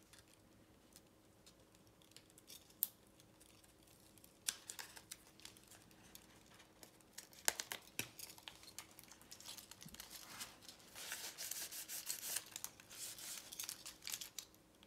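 Faint rustling and crinkling of a clear protective film and its peeled paper backing being handled, with a few sharp clicks. Quiet for the first few seconds; the crinkling grows busier near the end.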